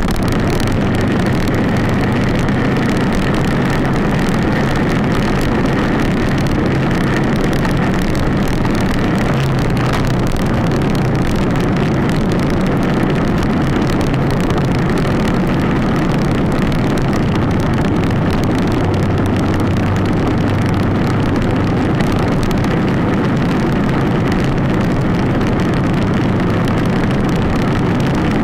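Yamaha 250 single-cylinder motorcycle engine running steadily at cruising speed, mixed with wind noise over the bike-mounted camera.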